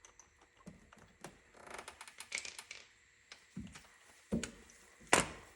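Hand tools being handled: scattered metal clicks and clinks, a scraping rattle about two seconds in, a couple of dull thumps, and one sharp knock near the end, the loudest.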